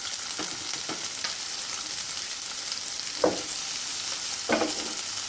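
Food sizzling in hot oil in a frying pan, a steady hiss, with a few short knocks of a utensil against the pan, the loudest about three seconds in.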